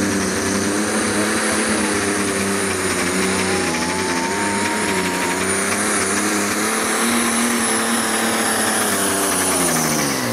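Deutz-Fahr 'Warrior' diesel pulling tractor running at full power through a pull, its engine note loud and steady with a thin high whistle over the middle seconds. The engine note drops in pitch near the end as the tractor comes past.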